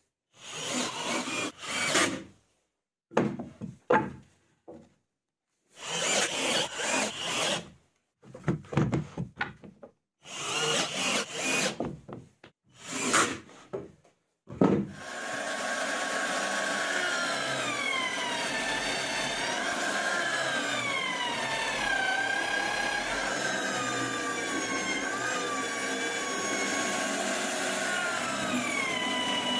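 A cordless drill driving screws into plywood in a run of short bursts, one to two seconds each. About halfway through, a drill press starts and runs steadily to the end, boring holes into solid lumber, its whine sliding down and back up as the bit bites into the wood.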